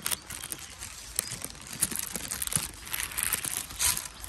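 Thin plastic bag crinkling and rustling right against the microphone, in irregular crackles, with a louder rustle near the end.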